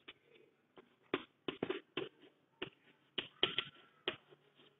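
Chalk tapping and scratching on a chalkboard during handwriting: a quick, irregular run of short, sharp clicks, about a dozen in all.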